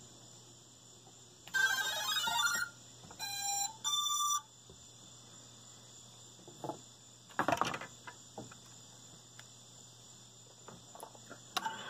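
A run of electronic beep tones followed by two short pitched beeps, like an FPV racing quadcopter's motors playing their power-up tones, over a steady high electrical whine. A brief rustle comes about seven and a half seconds in.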